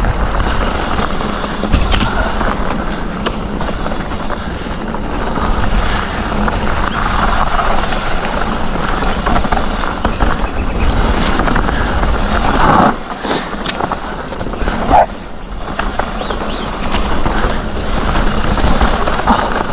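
Canyon Spectral CF 7 full-suspension mountain bike rolling fast down a rocky dirt trail: knobby tyres crunching over gravel and the bike rattling over bumps, with wind rushing over the camera microphone. There is a sharp knock about fifteen seconds in.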